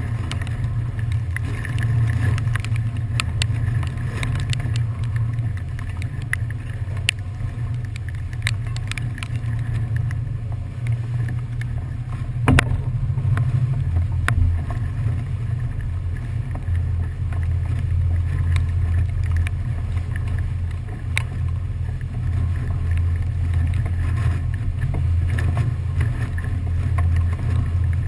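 Passenger ferry underway: a steady low rumble of its engines and wind on the open deck, with scattered sharp ticks and one louder knock about twelve seconds in.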